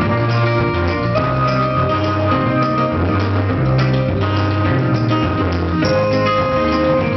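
Rock music with electric guitar, bass and drums playing steadily.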